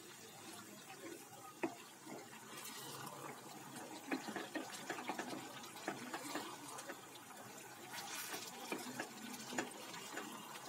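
Wooden spatula stirring chicken pieces in thick curry gravy in a steel pot: soft wet squelching and sloshing, with scattered small knocks of the spatula against the pot.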